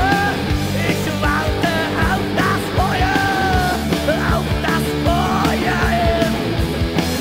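1980s German heavy metal/hard rock band recording playing, with drums, bass and a lead melody that bends and slides in pitch.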